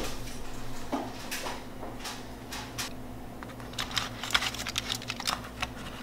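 Salsa being spooned onto fish in crinkled aluminium foil: light taps and foil crinkles, coming thick and fast in the second half, over a steady low hum.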